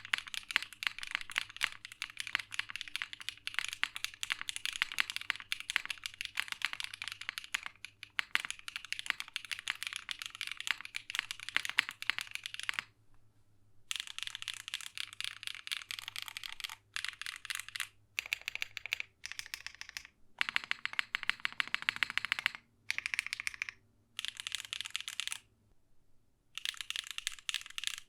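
Typing on a mechanical keyboard fitted with factory-lubed HMX Hibiscus linear switches (gasket-mounted board with a nylon plate and GMK keycaps). The key strikes run without a break for about 13 seconds, then come in shorter bursts with brief pauses between.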